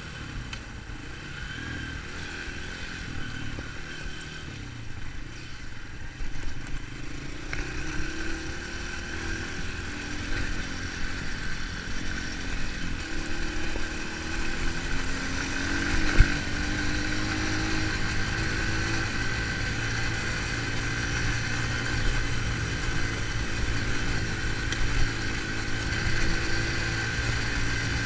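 Dirt bike engine running under way, its pitch rising twice as it picks up speed, over a steady rush of wind and tyre noise on gravel. A single sharp knock about sixteen seconds in.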